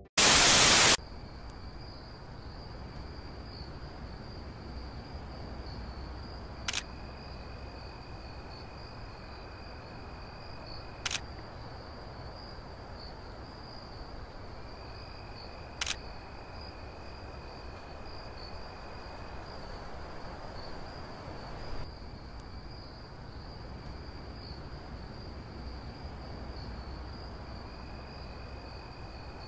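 A short burst of loud static hiss, then three phone-camera shutter clicks several seconds apart over a steady high-pitched trill.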